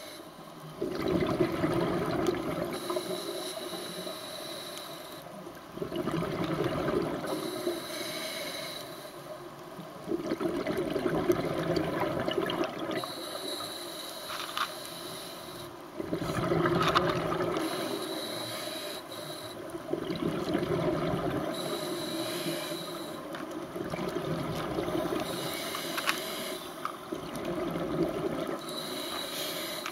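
Scuba diver breathing through a regulator underwater: a hiss on each inhale alternates with a gurgling rush of exhaled bubbles, about seven breaths in a steady rhythm, one every four seconds or so.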